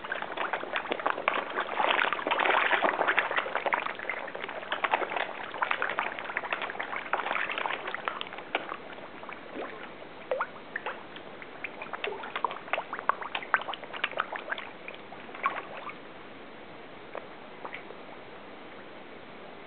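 Koi crowding and thrashing at the water surface: a dense crackle of small splashes and slurps. It thins after about ten seconds to scattered splashes, then to only an occasional one.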